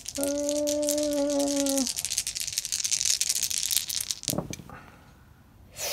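A handful of plastic gaming dice rattling and tumbling across the table, a dense run of small clicks for about four seconds, with a short steady hum under it near the start. A single knock comes just after the clicks stop.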